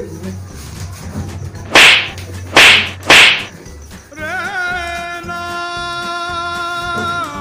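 Three loud, sharp slap cracks in quick succession, from a man being struck. About four seconds in, a long held musical note begins, wavering at first and then steady.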